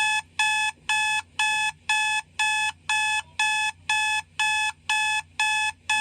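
Electronic alarm clock beeping: a steady run of short, evenly spaced, high-pitched beeps, about two a second.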